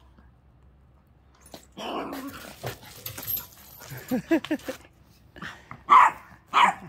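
A dog whimpering and yelping in short, pitch-bending cries starting about two seconds in, then two sharp barks near the end.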